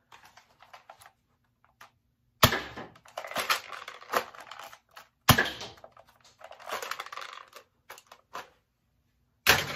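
Modified Air Warriors Tactical Storm foam-dart blaster firing: three sharp shots, the first about two and a half seconds in and the others about three and four seconds after it, each followed by a clatter of the blaster's plastic mechanism.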